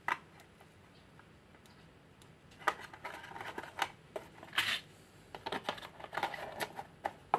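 Packaging handling as a smartwatch is set into its plastic box tray and the cardboard box is closed: light clicks and rustling, starting about two and a half seconds in, with one brief louder rustle about four and a half seconds in.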